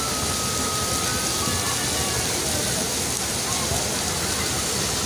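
Steady rushing of a shallow natural hot-spring stream flowing over stones, with faint distant voices of bathers.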